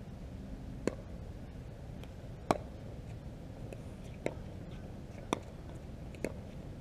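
Pickleball rally: paddles popping the hard plastic ball back and forth, five sharp hits roughly a second apart, the loudest about two and a half seconds in, over a steady low rumble.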